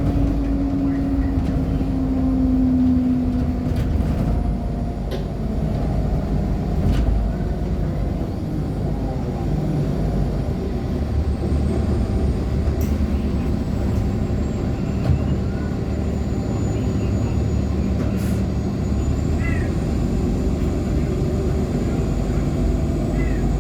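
Interior ride noise of a 2014 Nova Bus LFS articulated diesel-electric hybrid with a Cummins ISL9 engine and Allison H50 EP drive, under way: a steady low rumble of engine and road, with a steady tone in the first few seconds and a few scattered clicks and rattles.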